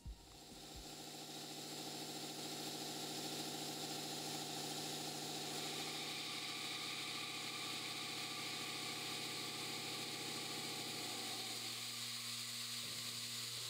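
MO-002 cast-iron CNC milling machine's spindle and cutter milling 40X alloy steel: a steady machine whine with a cutting hiss over it, fading in over the first second or two. The pitch of the whine shifts about eleven seconds in.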